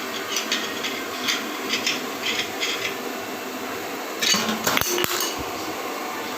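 Meat mincer driven by a 1/2 HP electric motor, running steadily. Light metallic clinks come several times in the first three seconds, and a louder burst of metal clatter comes a little past the middle.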